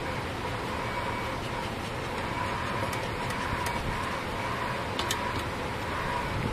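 Steady drone of honeybees flying around the hive, with a few light clicks from hands on the wooden hive box and smoker.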